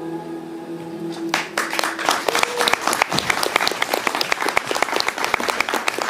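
The band's last held notes fade out, and about a second in an audience breaks into applause, dense clapping that carries on.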